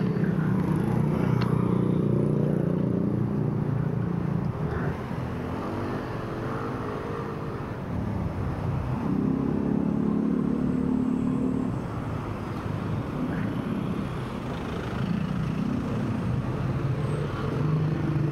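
Road traffic: engines of motor vehicles going by, the engine hum swelling and fading several times.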